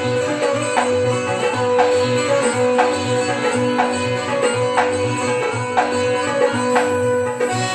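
Instrumental passage of a nagma: an electronic keyboard holds and plays a melody over a steady dholak beat, with no singing.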